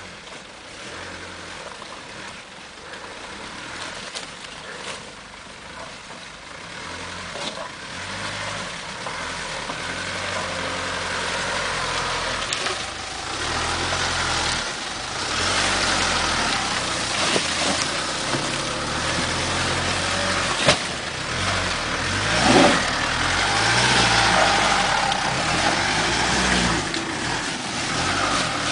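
Mitsubishi Pajero IV engine running under load as the SUV crawls through deep mud, its tyres churning the ruts. It grows louder as the vehicle draws near, with a brief rev about two-thirds of the way through.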